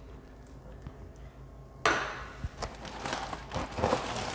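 A sharp knock about two seconds in, as a lamp is set down, then scraping and rustling of a large cardboard box cover being gripped and shifted by gloved hands.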